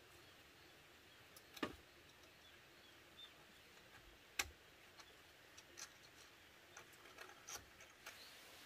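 Quiet, scattered knocks and clicks of bamboo poles being handled on a roof frame, with two sharper knocks about one and a half and four and a half seconds in. Near the end, faint repeated chirping.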